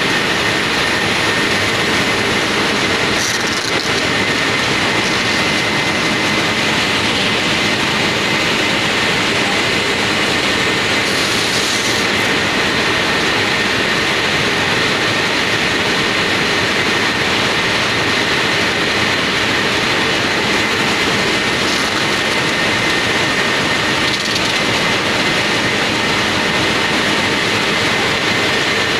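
Factory machinery running steadily: a loud, even mechanical noise with a steady high whine over it.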